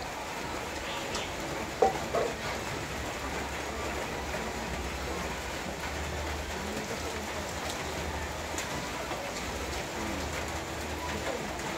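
Fish grilling over a charcoal fire, a steady sizzling and crackling hiss, with a couple of sharp metal clinks from the tongs on the grill about two seconds in.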